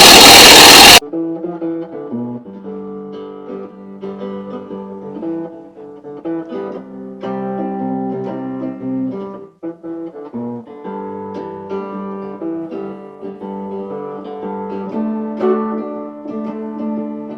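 Acoustic guitar playing a steady chord accompaniment with no singing: the instrumental lead-in to a song. A very loud burst of harsh noise fills the first second before the guitar comes in.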